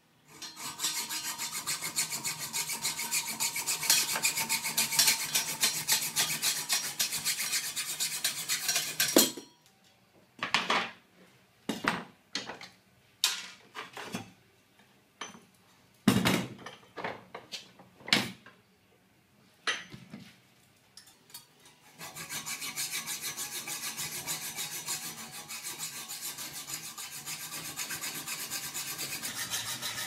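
Hacksaw cutting off the protruding ends of 6mm roofing bolts held in a bench vise, with quick, even back-and-forth strokes. It stops about nine seconds in, with a few separate knocks and clatters as the work is handled, then the sawing starts again about twenty-two seconds in.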